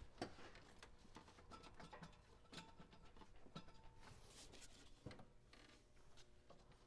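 Near silence: faint room tone with scattered small clicks and light rubbing.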